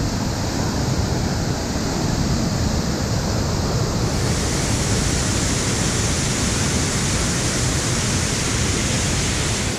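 A large mountain waterfall pouring heavily into its pool at close range: a loud, steady rushing of falling water. The hiss brightens about four seconds in.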